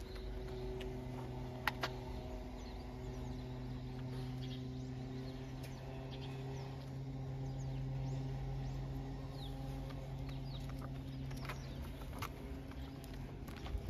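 Faint short bird chirps over a steady low machine hum, with a few scattered light clicks.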